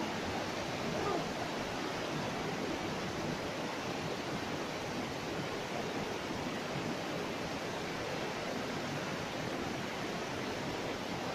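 River rapids rushing over boulders: a steady, unbroken roar of whitewater.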